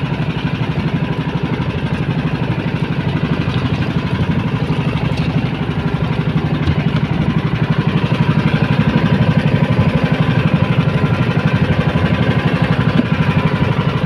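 A small boat engine running steadily with a fast, even putter, growing a little louder about halfway through.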